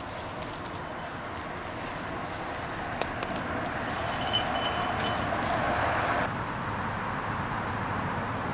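Rustling and a few sharp clicks of handling in dry leaf litter over a steady outdoor background hiss, with a brief high tinkling about four seconds in. About six seconds in it changes suddenly to a steadier, quieter background.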